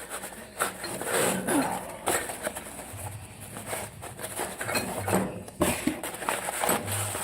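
Irregular clicks, light clinks and rustling as a steel wrench set and its packaging are handled.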